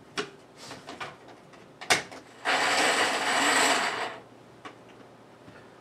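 Small kitchen food chopper running in one burst of about a second and a half, chopping shallot and garlic together. A couple of sharp clicks come first as the container and lid are handled.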